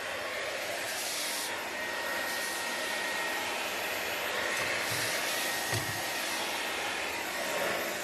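Jimmy JV85 cordless handheld vacuum cleaner running steadily with a nozzle attachment, sucking up dust.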